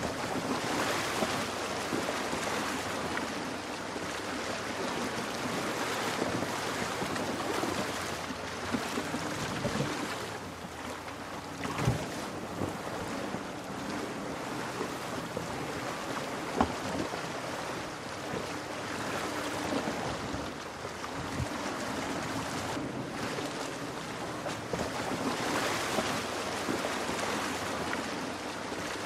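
Rushing stream water, with a Land Rover Defender's engine running low underneath as the SUV wades and splashes through the shallow stream. Two sharp knocks stand out about halfway through.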